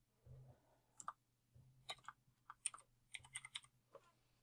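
Faint keystrokes on a computer keyboard: scattered single taps, then a quicker run of several about three seconds in, as a word is typed.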